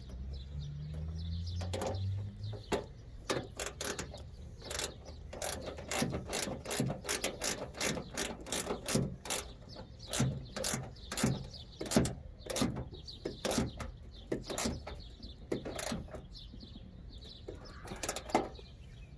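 Ratcheting wrench with a 10 mm socket clicking in repeated runs of strokes while the new tail light's mounting nuts are tightened down. A low hum comes first, for the first couple of seconds.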